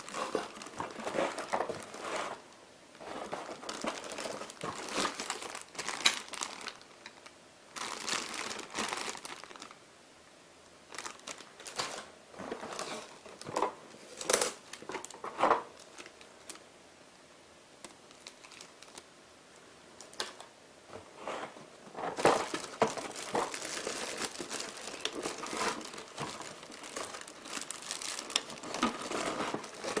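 Clear plastic packaging crinkling in hands, with a cardboard box being handled, in irregular bursts and sharp clicks. There is a quieter spell with only scattered clicks just past halfway, and the crinkling picks up again after it.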